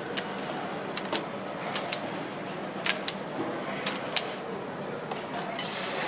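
Sharp clicks and clacks of motorcycle parts being handled and fitted, over a steady assembly-line background. Near the end an electric power screwdriver starts up with a steady high whine.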